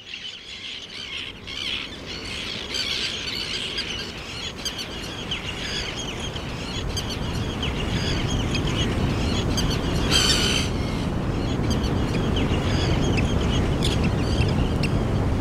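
A seabird colony calling: many short squawks and chirps overlapping, with a thick burst of calls about ten seconds in. A steady rushing noise lies underneath and grows louder over the first several seconds.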